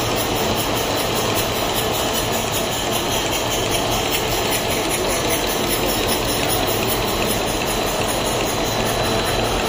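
Paper-cup glue coating machine running steadily, a continuous even machine noise as the paper web feeds through its rollers.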